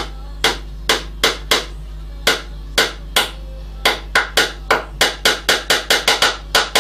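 Small hammer tapping a nail into a wooden board: about twenty light, sharp strikes, coming faster and closer together in the last few seconds.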